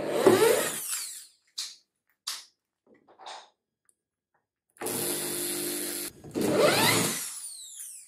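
Electric drill driving a screwdriver bit on the screws of a front-loader washing machine's plastic outer tub. It starts with a whirring burst that climbs in pitch, then gives three short blips. About five seconds in it runs steadily for just over a second, then makes a last burst that winds up and dies away.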